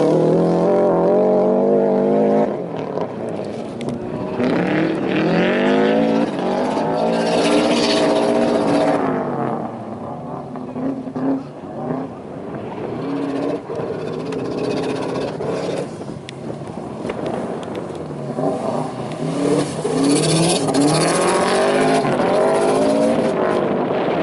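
Rallycross car's engine revving hard through the gears on a dirt course, its pitch climbing and dropping back again and again as it accelerates, shifts and lifts through the turns. It is quieter through the middle stretch and strong again near the end.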